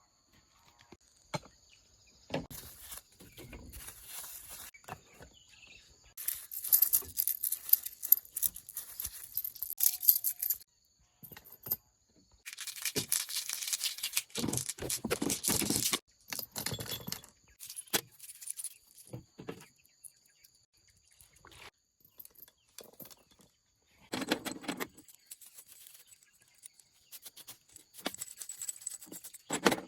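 Metal tools and engine parts clinking, rattling and scraping during hand work on a small diesel engine that is not running, with two longer stretches of scraping or rubbing in the middle.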